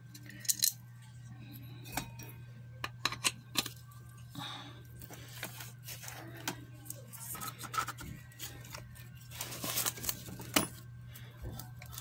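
Light metallic clicks and scrapes, scattered and irregular, as a washing machine motor's metal end cover and a small washer are handled and fitted over the rotor shaft, which is a tight fit. A low steady hum sits underneath.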